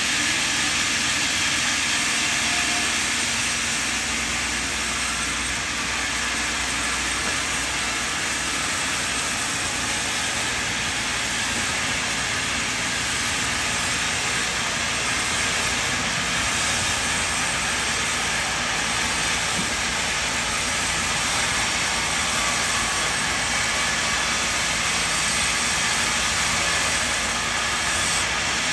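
Large sawmill band saw running steadily as a squared timber is fed through its blade: a continuous, even rushing noise with no breaks.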